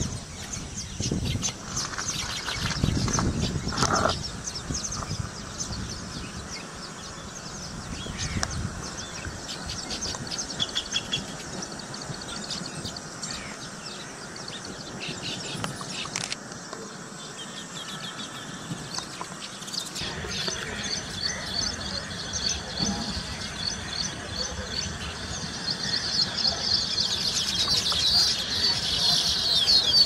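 Baya weavers chattering: many short, high chirps from several birds, growing busier toward the end. A low rumble sits under them in the first few seconds.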